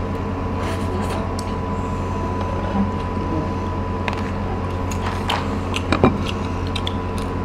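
A steady machine-like hum with a thin high whine runs through, under a few light clicks of chopsticks and dishes; a sharper clatter comes about six seconds in.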